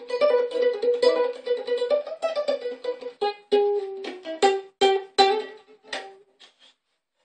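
Stagg Turtle ukulele strummed in chords, quick even strums at first, then a chord change about three seconds in to slower, separate strums. The last strum rings out and dies away about six and a half seconds in. The room is a slightly echoey kitchen.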